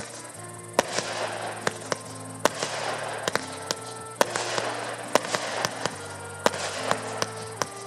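Fireworks going off in a rapid, irregular string of sharp bangs and crackles, a couple each second, as comets and small shells fire. Music with long held notes plays underneath.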